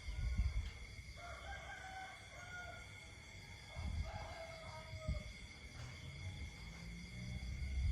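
Night ambience of insects trilling steadily at a high pitch, with two drawn-out animal calls, one about a second in and one about four seconds in, over low rumbles.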